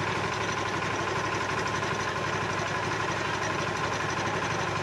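Power tiller's diesel engine running steadily, driving its rotary tiller blades, which spin freely off the ground. A fast, even low pulse runs under a steady hum.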